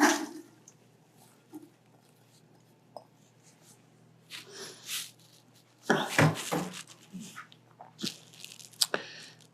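Chopped red onion being tipped and scraped into an Instant Pot's inner pot: a few short bursts of rustling and clatter with quiet stretches between.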